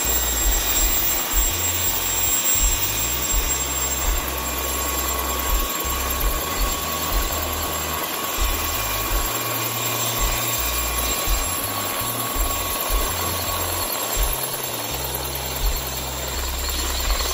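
Mosquito ultralight helicopter running at power, with its rotor turning, as it lifts off into a low hover and then moves away. The sound is a steady, dense noise over an uneven low rumble.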